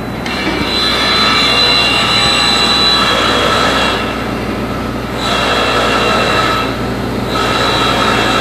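Factory machinery running: a steady noisy drone with a constant high whine and a low hum, its high end dropping away briefly twice, about halfway and near the end.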